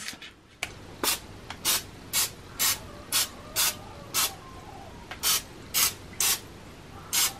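Aerosol can of vegetable-oil cooking spray spraying into paper cupcake liners in a muffin tin: about a dozen short hissing squirts, roughly two a second, one per cup, with a brief pause near the middle.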